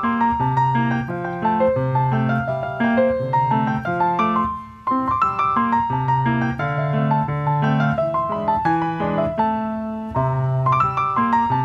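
Grand piano played solo: a steady run of melody notes over a repeating bass line, with a brief pause about four and a half seconds in.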